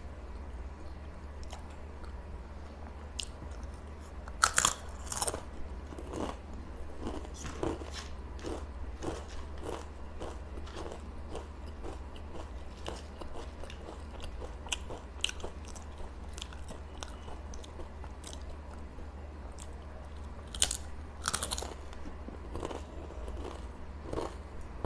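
Close-miked crunching of Uncle Chips potato chips: two loud, crisp bites, one about four seconds in and one near the end, each followed by steady chewing at about two chews a second, over a low steady hum.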